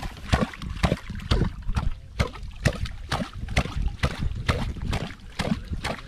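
Water splashing and sloshing as people wade through a shallow field channel, with irregular splashes about two to three a second.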